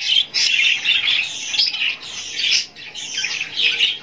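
Many caged pet birds chirping and chattering at once, a constant tangle of high calls with no pause.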